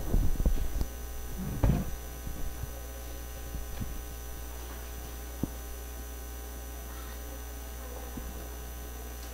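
Steady electrical mains hum through a PA sound system, with a few thumps and knocks in the first two seconds and a single click about halfway through.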